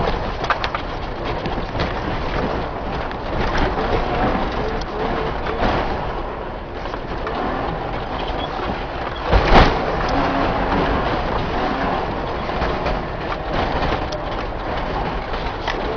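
Steady engine and road noise inside a moving car's cabin, with one loud knock about nine and a half seconds in.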